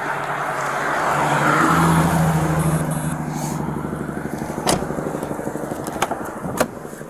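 A motor vehicle driving past: its engine hum builds to a peak about two seconds in, then fades away over the next few seconds. Three sharp knocks come in the second half.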